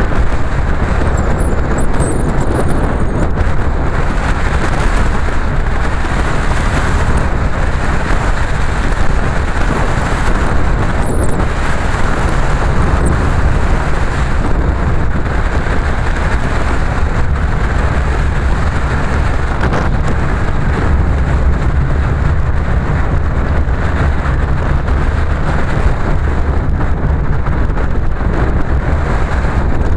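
Car driving steadily along a lane: a continuous low engine and road rumble with wind buffeting the microphone.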